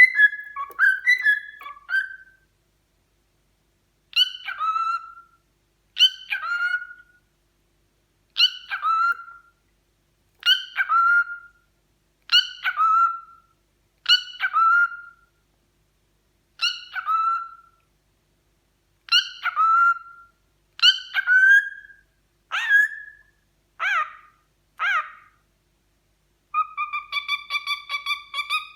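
Cockatiel calling over and over, one short call about every two seconds, then a long, steady whistled note near the end.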